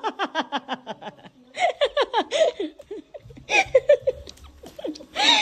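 High-pitched laughing in several bursts of quick, falling peals, the reaction to a playful scare.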